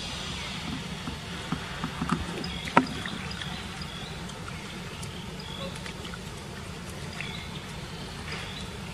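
Light clicks and knocks of a small object being handled on dirt ground by a baby macaque, the loudest nearly three seconds in, over a steady low rumble with scattered short high chirps.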